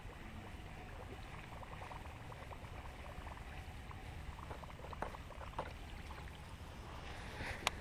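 Wind rumbling on the microphone over light water sounds as a topwater lure is cast and reeled back across the surface. A few faint ticks come in the middle, and one sharp click near the end.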